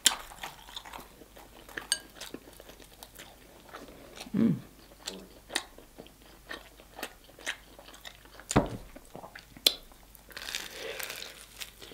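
Close-miked eating sounds: scattered clicks and taps from handling fried chicken, a squeeze of a sauce bottle midway, then a bite into crispy fried chicken crunching near the end.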